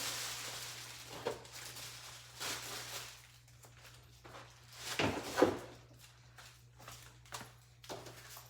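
Packaging and parts being handled: a rustle in the first second, then scattered light knocks and rustles, the loudest about five seconds in.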